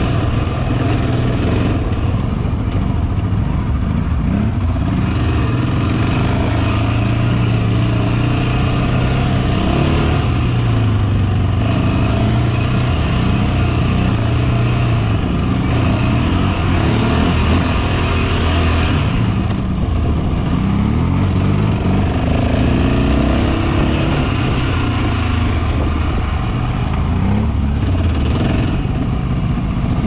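Yamaha Raptor 700 quad's single-cylinder four-stroke engine running under way, its revs rising and falling again and again as the throttle is worked.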